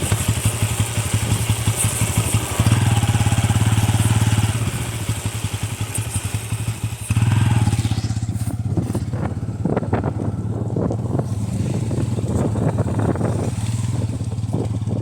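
Bajaj Pulsar N160 motorcycle engine running steadily under riding. It gets louder about three seconds in, eases a little, and picks up again about seven seconds in. Scattered knocks and clatter run through the second half.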